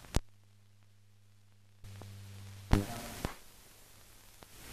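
Background noise of an old film soundtrack: a steady low hum with a sharp click at the start, a louder pop about two and three-quarter seconds in, and a smaller click half a second later.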